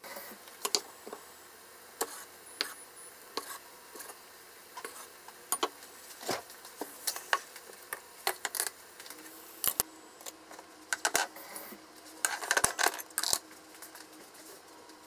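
Kitchen cookware clicking and clinking: irregular sharp ticks and light knocks, with a denser run of clinks near the end.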